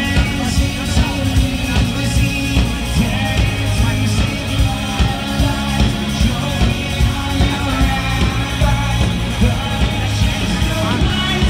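Live rock band playing a song through a PA: a singer over drums, bass and electric guitars, with a steady beat about twice a second.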